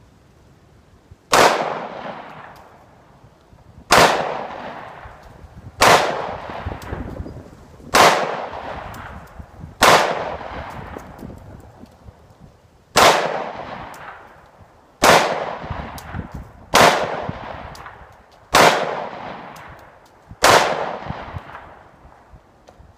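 Glock 20SF 10mm pistol fired ten times in slow, aimed succession, the shots about two seconds apart with a slightly longer pause midway; each sharp crack is followed by a long echo fading out.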